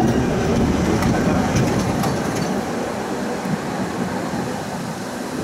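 Tram running along the track, heard from on board: a steady rumble of wheels on rails with a few faint clicks, easing off somewhat after about two seconds.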